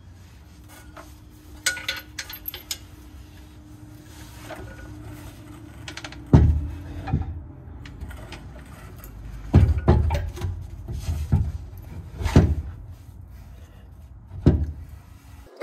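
Irregular heavy clunks and knocks from a trailer axle being shifted and worked on a floor jack under the camper, with a few light clicks about two seconds in.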